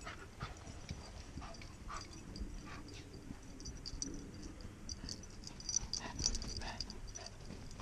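Dogs moving about on sand close by: a scatter of short, soft sniffs and scuffs with light high ticks mixed in, and no barking.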